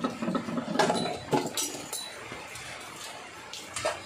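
Small metal compressor parts and hand tools clinking and knocking while a freezer compressor is taken apart by hand. There is a cluster of sharp clinks in the first two seconds, then a couple more near the end.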